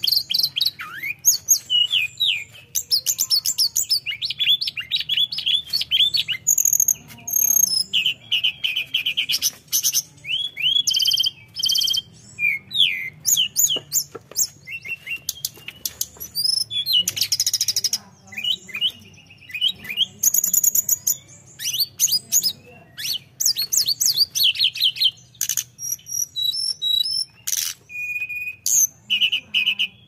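Caged tledekan, a Cyornis blue flycatcher, singing continuously in full song: a fast, varied run of high whistles, trills and chirps with only brief pauses.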